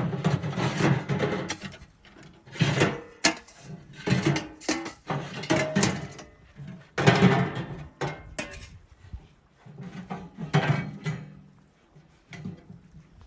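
Irregular bouts of rubbing, scraping and knocking, as of things being handled, coming in bursts a second or two long with short gaps between.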